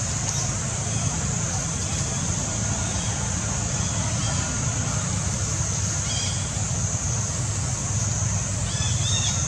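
Steady outdoor background noise: a low rumble under a constant high-pitched hiss, with a few faint short chirps about six seconds in and again near the end.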